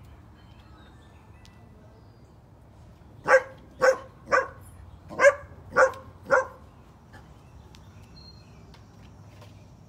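Dog barking six times in a quick run, about two barks a second, starting about three seconds in.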